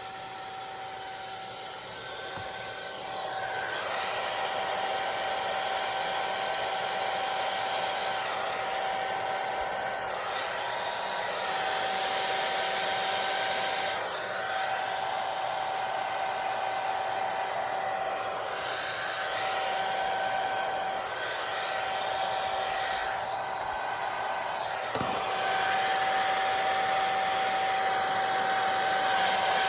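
Hair dryer running with a steady whine over a rush of air. It gets louder about three seconds in, then swells and dips in loudness.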